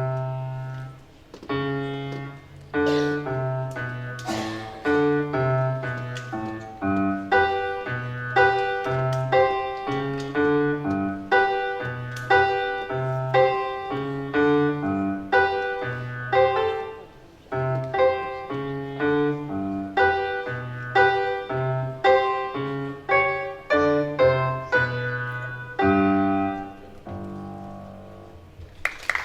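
A piano playing a melodic piece with a steady rhythm of notes over repeated bass notes. Near the end it slows and closes on a held chord that fades away.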